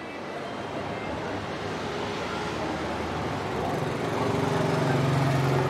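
Busy street background noise, joined from just past halfway by a small engine's steady hum that holds one pitch and grows louder toward the end.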